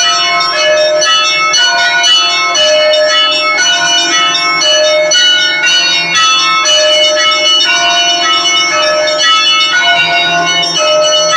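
Russian Orthodox church bells rung in a festive peal: small bells strike a quick, repeating pattern over the sustained hum of larger bells.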